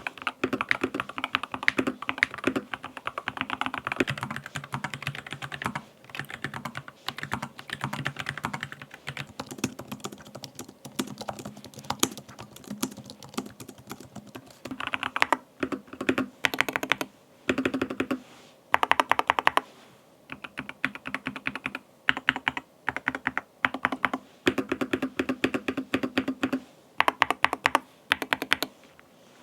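Typing on computer keyboards in a sound test: the Keychron K2 HE with its Hall Effect magnetic linear switches, compared with a Keychron K17 Max low-profile mechanical keyboard and an Apple Magic Keyboard. Fast, steady keystrokes through the first half, then bursts of typing broken by short pauses.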